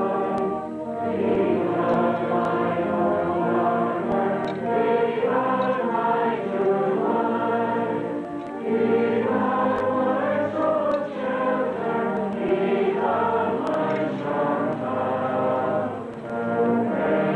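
A large open-air congregation singing a hymn in slow, sustained phrases, with band accompaniment, likely brass, underneath. The singing dips briefly between lines, about a second in, near the middle and near the end.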